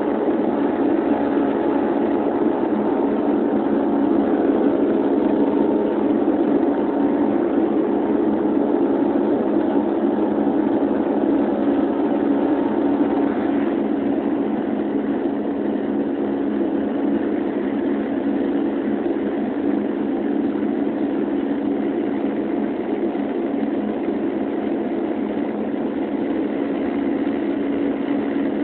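Cabin drone of a De Havilland Canada Dash 8's twin turboprop engines and propellers in flight, heard from a window seat. It is a steady hum with a low propeller tone and its overtones, easing slightly in level about halfway through.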